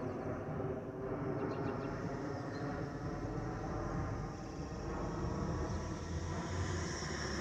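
Steady low rumble of a Boeing 717's twin rear-mounted Rolls-Royce BR715 turbofan engines as the airliner passes overhead.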